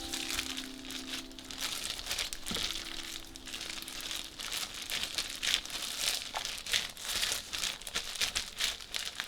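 Irregular crinkling and crackling, a dense run of small sharp rustles.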